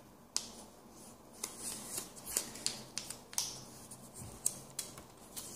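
A small slip of paper being folded and creased between the fingers: a faint, irregular string of crisp crackles and clicks.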